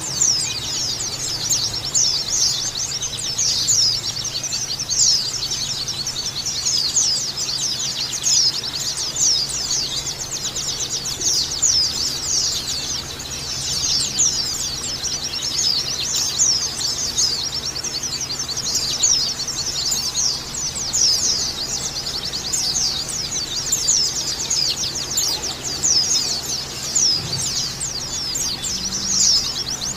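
White-eyes (pleci) singing a continuous, fast, high-pitched twittering chatter of dense chirps and trills.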